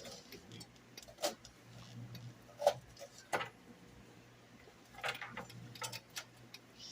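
Kitchen utensils clinking and knocking against a plate and pan: a handful of sharp separate strikes with pauses between them, over a faint low hum.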